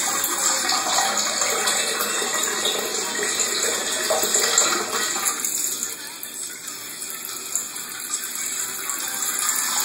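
Water running steadily from a bathroom tap, a constant hiss that becomes quieter about halfway through.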